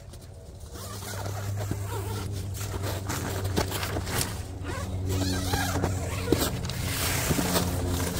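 Nortent Gamme 4 hot tent's door zipper being pulled open in several rasping strokes, with the tent's nylon fabric rustling as the door panel is folded back. A low steady hum runs underneath from about a second in.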